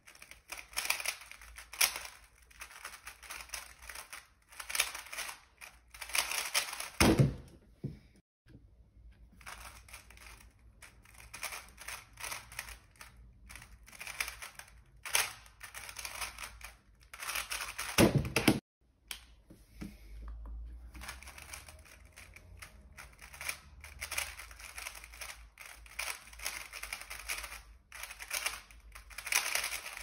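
DaYan TengYun M 3x3 speed cube being turned very fast by hand: dense runs of quick plastic clicks from the layer turns. Twice the clicking is broken by a loud thump.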